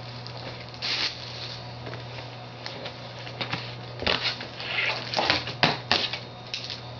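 Packaging of an Apple wireless keyboard being handled and opened: irregular rustling and crinkling, with one burst about a second in and a busier run of crinkles and scrapes in the second half. A steady low hum runs underneath.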